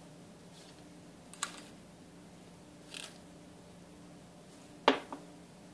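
A few light, sharp clicks of a spoon at a stainless steel saucepan over a faint steady hum, as spoonfuls of sugar are added to milk.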